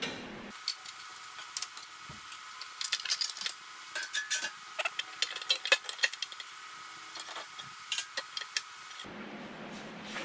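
Metal hand tools and small metal parts clinking and tapping in quick, irregular clicks as a metal guard is unscrewed and taken off a paper-folding machine.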